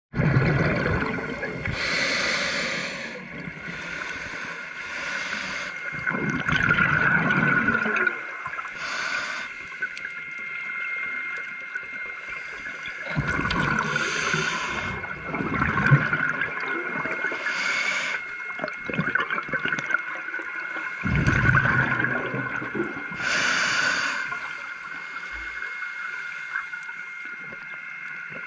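Scuba regulator breathing heard underwater: short hissing inhalations through the regulator alternate with four longer bursts of exhaled bubbles that rumble and gurgle. A faint steady high whine runs underneath.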